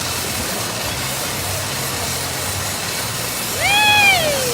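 Steady rushing water and splashing of a water-park pool, with a child's single high call that rises and falls near the end.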